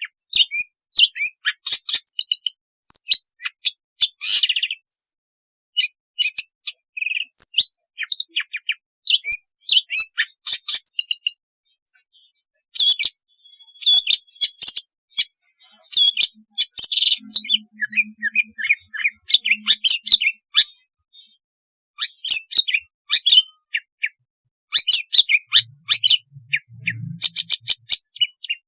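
Long-tailed shrike (cendet) singing: rapid runs of short, high chattering notes and quick whistled glides in bursts, with a short pause about twelve seconds in.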